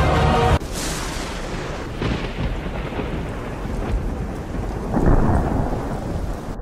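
Intro music cuts off abruptly half a second in, giving way to a thunderstorm: a steady wash of rain with rumbling thunder, which swells loudest about five seconds in.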